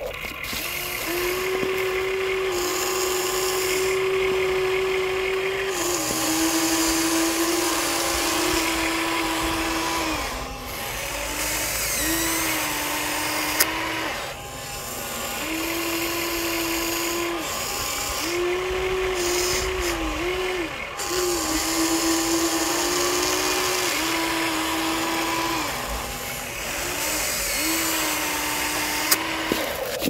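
Small electric motors and plastic gearboxes of a remote-control toy construction vehicle whirring in stretches of a few seconds, the whine stepping a little up and down in pitch as it starts, stops and takes load. There are two sharp clicks, one midway and one near the end.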